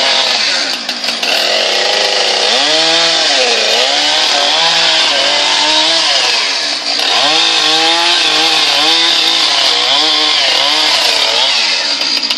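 Chainsaw cutting into a large tree. Its engine pitch repeatedly swells and sags as the throttle and the load change, with a brief dip about seven seconds in.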